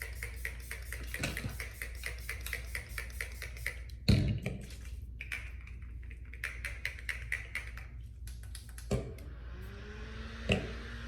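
Makeup setting spray bottle pumped rapidly, sending out quick bursts of mist several times a second in two long runs. A thud sounds about four seconds in and a couple of lighter knocks near the end.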